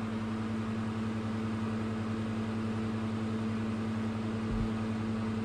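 Steady electrical hum from an amplifier dyno test bench: one strong low tone with fainter overtones above it, holding unchanged throughout.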